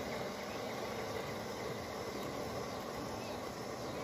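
G-scale model train passenger cars rolling along the garden track, a steady even rumble of wheels on rail, with a faint insect drone behind it.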